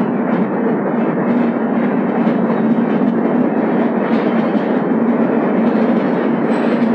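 Express train running through a rock tunnel, heard from an open coach door: a loud, steady roar of wheels on rails.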